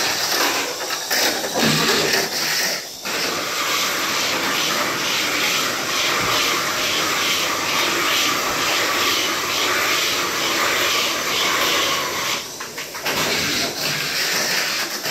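Mini 4WD cars running laps on a plastic track: a steady high whir of small electric motors and gears, with a regular pulsing about twice a second.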